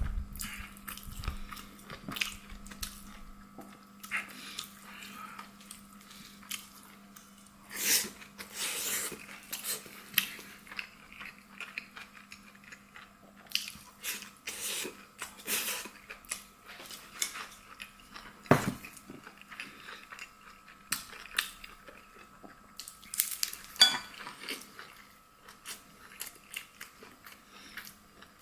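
Close-up eating sounds: a person chewing and biting food, with irregular crunches and small clicks through the stretch and a few louder knocks. A steady low hum runs underneath.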